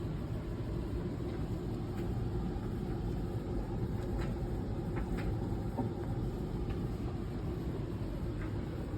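Steady low rumbling background hum with a few faint, light clicks.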